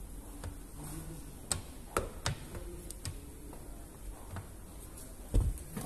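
Plastic squeegee working wet tint film against a car's door glass: light scraping with a few sharp clicks and taps, the loudest a low knock near the end.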